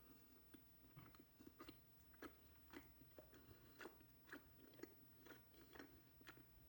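Faint close-up mouth sounds of chewing honey-filled rice cakes with ice cream: soft, wet clicks and smacks, a few each second.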